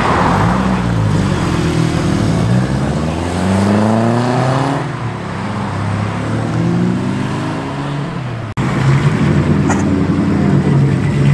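Car engine revving, its pitch climbing and dropping back a few times; the sound cuts out for an instant about eight and a half seconds in.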